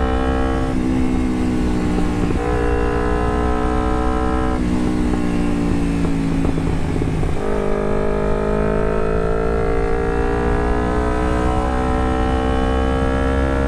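Kawasaki Ninja 250R's carbureted parallel-twin engine through a Termignoni aftermarket exhaust, under way: the exhaust note climbs slowly in pitch, breaks off and falls back about a second in and again for a few seconds around the middle, then pulls with a steady, slowly rising pitch through the second half.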